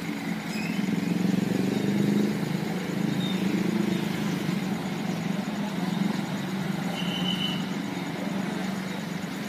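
Motorcycles and a light minivan crossing a railway level crossing: a steady mixed drone of small engines that swells a second or two in, then runs on evenly.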